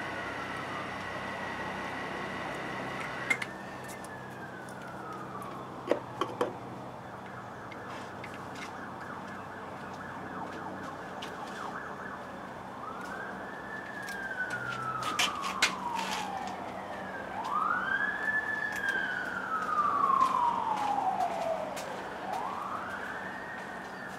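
A siren wailing, its pitch rising quickly and falling slowly four times, loudest in the second half, with a few sharp clicks.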